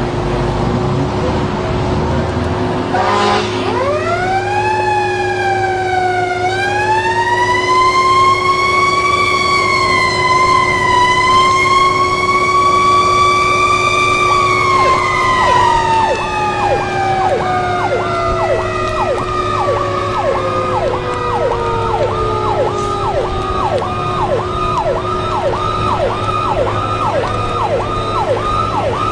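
Fire truck siren winding up slowly about three seconds in, holding a high wavering pitch, then winding down. From about halfway a second siren yelps rapidly, several falling sweeps a second, over a steady low hum.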